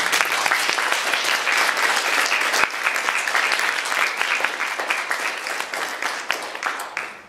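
Audience applauding, a dense spatter of hand claps that dies away near the end.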